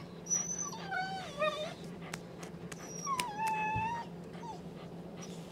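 Dog whining in high-pitched whimpers: a short one, then one that dips and rises about a second in, and a longer, steadier one about three seconds in. These are the excited whines of an over-aroused dog waiting on a training pedestal.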